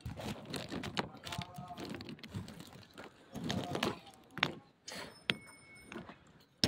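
Hard lumps of half-roasted clay clicking and knocking against each other as a hand moves among them in the pile.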